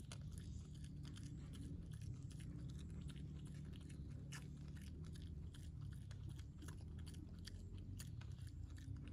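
Young pig eating cooked rice: irregular, crisp clicks of chewing and biting over a steady low hum.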